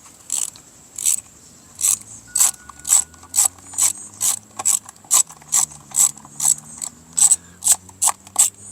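Ratcheting driver with a T25 Torx bit clicking in a steady rhythm, about two clicks a second, as screws are backed out to free a weed whacker's gas tank.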